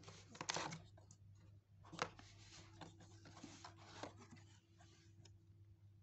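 Cardboard packaging being handled and opened: scraping and rustling as the box slides out of its sleeve and the lid flaps open, with a sharp tap about two seconds in. A steady low hum runs underneath.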